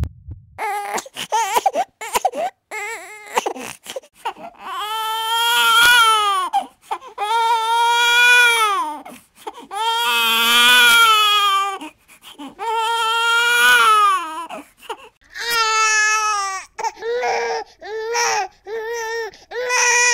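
A baby crying: a few short whimpers, then long wails that rise and fall in pitch, each a second or two long, breaking into shorter, choppier cries near the end.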